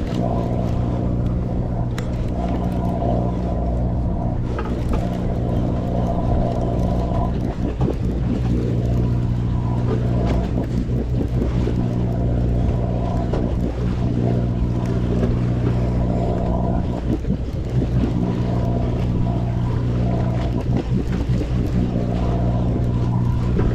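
A sportfishing boat's engine running with a steady low hum, its tone unchanging throughout.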